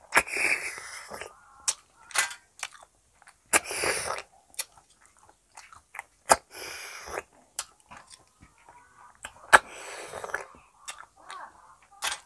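Close-miked eating of snail curry by hand: wet slurping and sucking from the fingers, chewing and lip smacks. Four longer slurps come about three seconds apart, with many sharp wet clicks between them.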